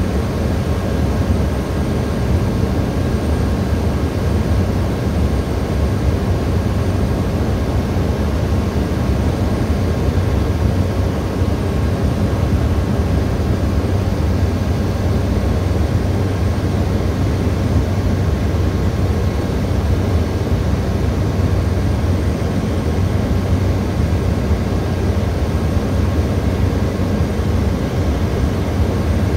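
Cessna Caravan's single PT6A turboprop engine and propeller heard from inside the cockpit on approach: a steady, unchanging drone, strongest low down, with a few faint thin whines above it.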